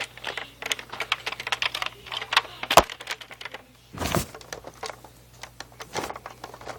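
Plastic clicks and rattles from handling a Nerf Longstrike CS-6 toy blaster, with one sharp snap a little under three seconds in and a short rushing scrape just after four seconds.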